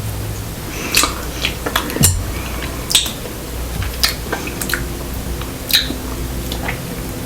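Close-miked eating sounds: a handful of sharp, wet mouth clicks and squishes, irregularly spaced, as someone chews food.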